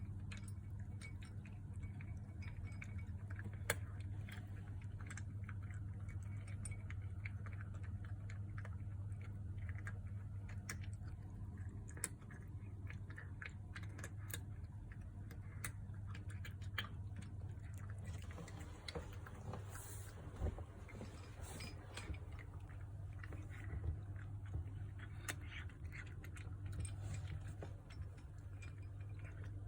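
Kittens eating dry food: irregular small crunches and clicks of kibble over a steady low hum, denser for a few seconds past the middle.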